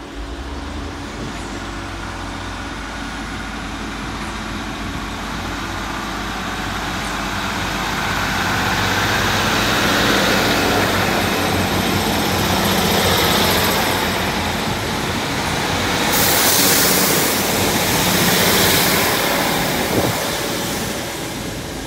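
Two coupled Class 150 Sprinter diesel multiple units pulling out of the station, their underfloor diesel engines running under power. The sound builds as the cars go by and is loudest about two-thirds of the way through.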